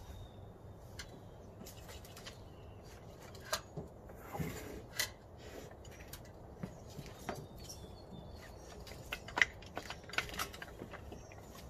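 Quiet, irregular light clicks and knocks as a yellow cable is handled and fed against a metal streetlight pole and lamp head, the sharpest knock about nine and a half seconds in.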